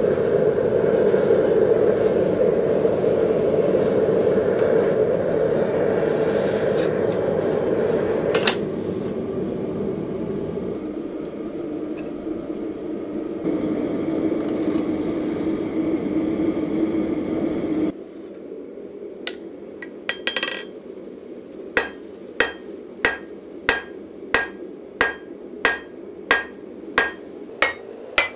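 Gas forge burner running with a steady rushing flame. About two-thirds of the way through, it gives way to a hammer striking hot steel on an anvil: ringing blows about two a second, light at first, then heavier.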